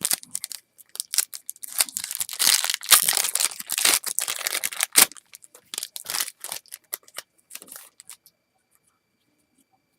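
Foil wrapper of a 2007 Upper Deck Future Stars baseball card pack being torn open and crinkled, densest in the first half, with a sharp snap about five seconds in. The rustling thins out and stops after about eight seconds.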